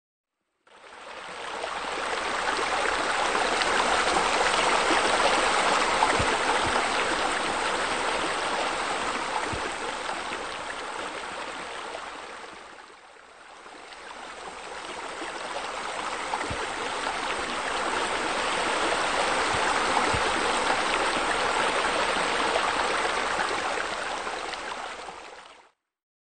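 Steady rushing, splashing water from pool water features: deck jets, bubblers and a spa spillway. It fades in, dips briefly about halfway through, swells again and fades out near the end.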